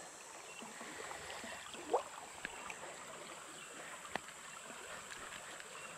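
Faint river current flowing and lapping against a boat hull, with a few small clicks and a short rising squeak about two seconds in.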